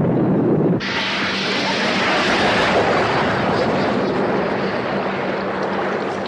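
A torpedo is fired and runs through the water: a loud, steady rushing hiss cuts in abruptly about a second in. Before it comes a lower rumble of the boat's engine and wind.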